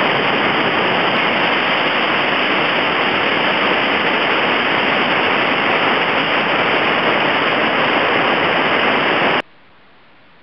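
Loud, steady rush of whitewater pouring through river rapids and falls, heard as an even noise. It cuts off abruptly about nine seconds in, leaving a much fainter hiss.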